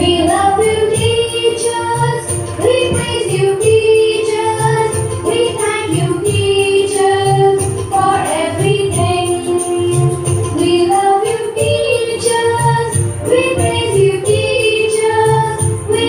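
A song with a sung melody over a steady beat: dance music.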